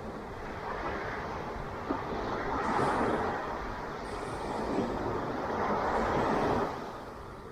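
Ocean waves breaking on a beach: a rushing wash of surf that swells twice, then eases off near the end.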